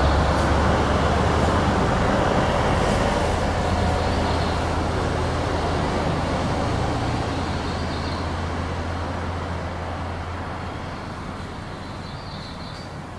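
Motor vehicle traffic: a low engine and road rumble that slowly fades away as the vehicle moves off.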